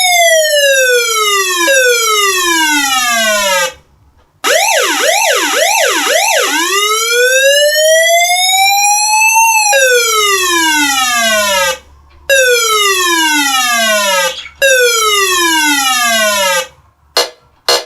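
Homemade electronic siren driven by a PIC16F628A microcontroller, stepping through its siren modes. It opens with a slow falling wail, breaks briefly, then plays a fast up-and-down warble of about four cycles and a slow rising sweep. It follows with three falling sweeps about two seconds each, separated by short gaps, and ends with a few short bleeps.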